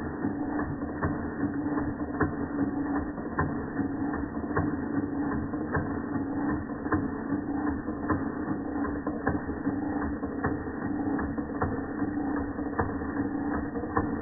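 Antique Georges Carette vertical toy steam engine running steadily under steam: a continuous mechanical clatter with sharper clicks a few times a second over a steady hum.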